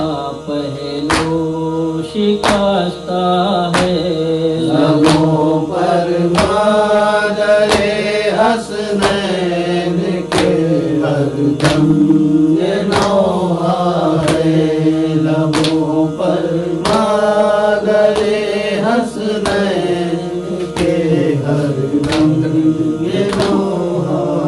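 Noha lament: a mournful chanted vocal line with long held notes and no clear words, over a steady beat about once a second.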